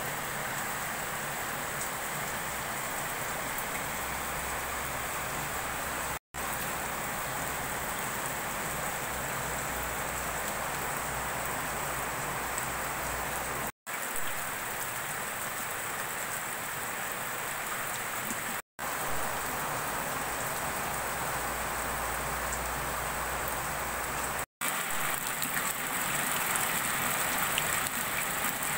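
Steady rain falling, a continuous hiss of drops, growing a little louder near the end. It drops out to silence for an instant four times.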